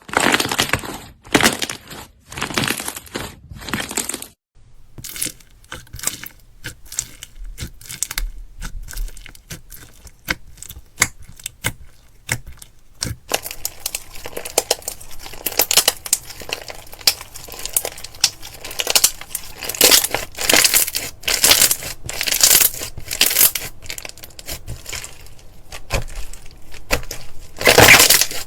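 Slime being pressed and worked, giving off rapid crisp crackling and popping clicks. A few louder squelching bursts open it; after a short break about four seconds in, sparse clicks build into dense crackling.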